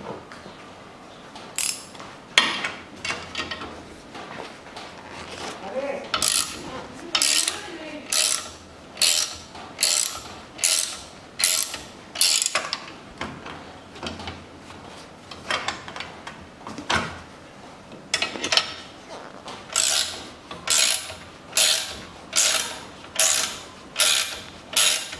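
Ratcheting wrench clicking as it backs off the threaded rods of coil-spring compressors on a car's front strut, releasing the compressed spring. It comes in a steady series of short ratcheting strokes, about one a second.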